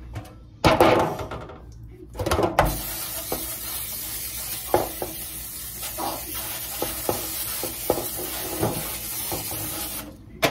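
Aerosol cooking spray hissing steadily for about seven seconds as it coats a disposable aluminium foil pan, with small crinkles and knocks from the foil; the hiss cuts off suddenly near the end. A loud clatter comes about a second in.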